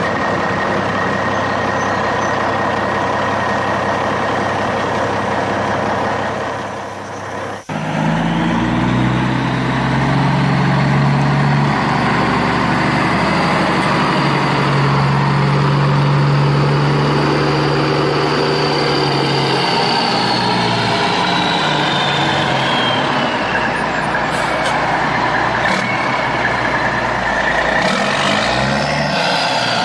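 Truck engine sound effect running steadily. It cuts off abruptly about seven and a half seconds in and a different engine sound starts, with a low hum and a whine that falls in pitch around twenty seconds in.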